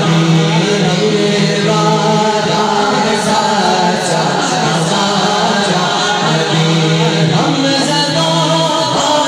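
Male voice singing a naat (Urdu devotional poem) into a microphone over a PA, drawing out long held notes.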